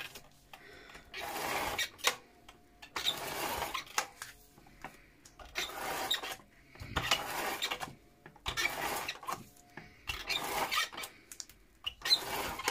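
A hand tool is drawn across paper in about eight short, even strokes of scraping noise, each under a second, with brief pauses between them, as adhesive is laid onto the notebook cover parts.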